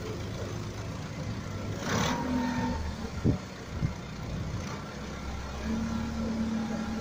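An engine running steadily, with a short hiss about two seconds in and two sharp knocks about a second later.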